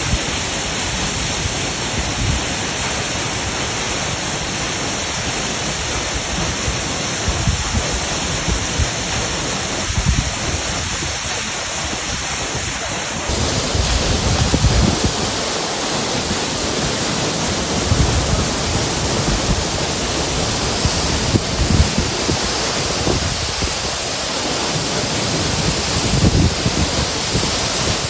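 Waterfall: a steady, loud rush of falling water, with uneven low surges. The sound changes character abruptly about thirteen seconds in, as a new shot begins.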